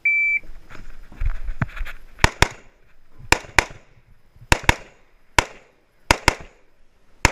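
A shot timer's short high start beep, then rapid rifle fire: about ten sharp cracks, most of them in close pairs a fraction of a second apart, roughly one pair a second.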